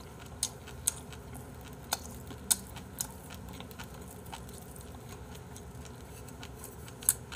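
Someone eating quietly, with a few sharp clicks of wooden chopsticks against a ceramic bowl. The sharpest clicks come about two and a half seconds in and near the end.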